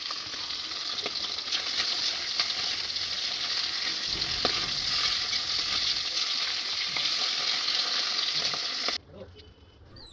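Food frying in hot oil in a pan, a steady sizzle with the scrape and tap of a spatula stirring. It cuts off abruptly about a second before the end.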